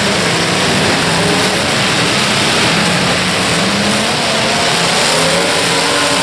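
Demolition derby car engines running and revving, with a steady loud din throughout.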